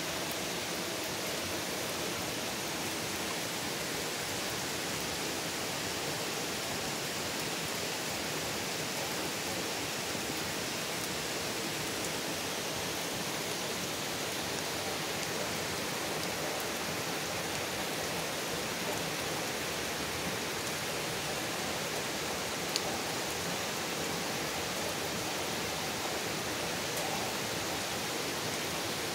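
Steady rain falling on trees and grass, an even hiss that holds at one level throughout.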